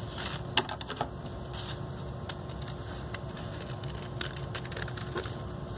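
Scissors snipping at craft pieces, with paper handled in between: scattered sharp clicks and crinkles, the loudest snips about half a second and a second in.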